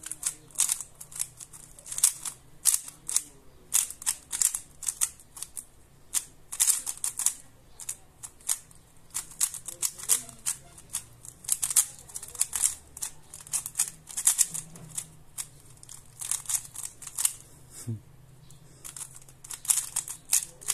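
A plastic 3x3 speed cube being turned rapidly by hand: quick bursts of clicking as the layers snap around, with short pauses between bursts.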